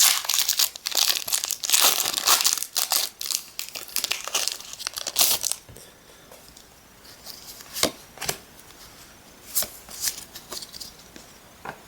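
Pokémon booster pack's foil wrapper crinkling and being torn open, dense and continuous for about the first five and a half seconds. After that come scattered light clicks of handling.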